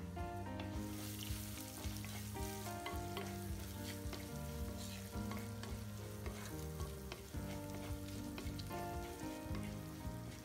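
Chopped aromatics and dried red chillies sizzling in hot oil in an earthen clay pot, with a wooden spatula scraping and clicking against the pot as they are stirred.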